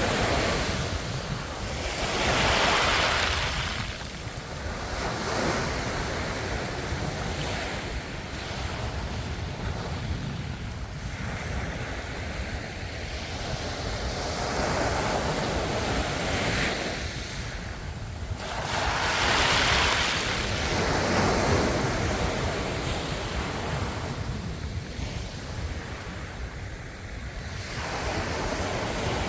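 Ocean waves breaking and washing on the shore, surging and ebbing, with the biggest breakers about two seconds in and again about nineteen seconds in.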